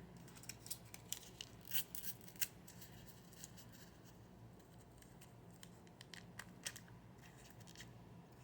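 Faint scattered clicks and rustles of salt and pepper being added to a container of rice, most of them in the first three seconds and a few more near the end, over a low steady hum.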